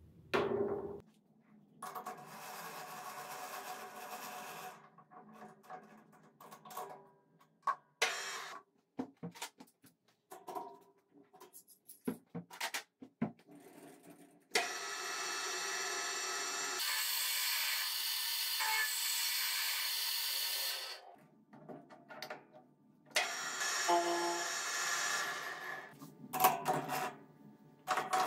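Handling sounds at a metal lathe: clicks and knocks of steel parts and tools, broken by several stretches of steady noise, the longest lasting about six seconds in the middle. Clicks near the end as a steel bar is clamped in the three-jaw chuck with the chuck key.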